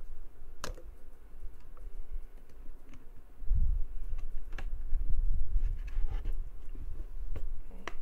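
Clicks and knocks from a 2.5-inch laptop hard drive and a metal SATA drive caddy being worked by hand: first a small screwdriver tightens a screw into the drive. From about three and a half seconds in there is louder low rubbing and bumping as the drive is pressed and seated in the caddy on the desk.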